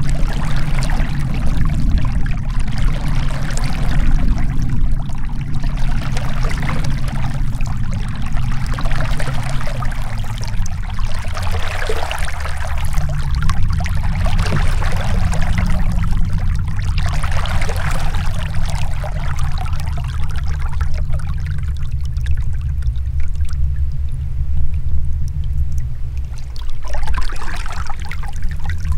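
Canoe paddle strokes: water splashing and trickling off the paddle blade in surges every few seconds, over a steady low rumble.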